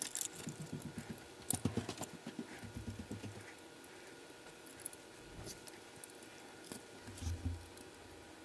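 Small brass model locomotive parts clicking and rattling against each other as they are handled and screwed together with a small screwdriver: a quick run of light clicks and taps in the first few seconds, then a few scattered taps.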